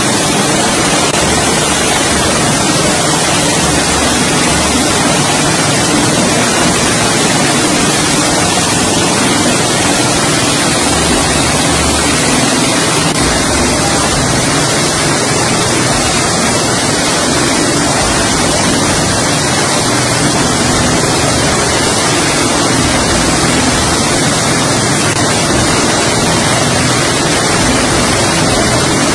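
Bell Boeing V-22 Osprey tiltrotor running on the deck with both proprotors turning: a loud, steady rushing from its twin turboshaft engines and rotor wash, with some low pulsing underneath.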